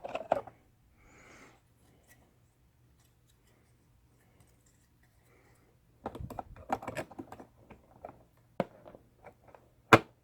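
Laptop keyboard keys being pressed in an irregular run of clicks after a few quiet seconds, with one sharper click near the end.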